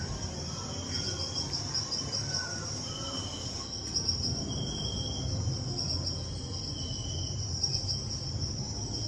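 Steady cricket-like chirring, a high, rapidly pulsing trill that runs on without a break, over a low background hum.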